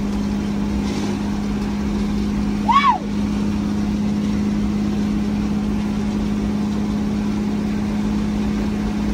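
Scania truck, remapped to 620 hp, running steadily at highway cruise, heard from inside the cab as a constant engine drone with road rumble beneath it. About three seconds in, one brief whistle-like tone rises and falls.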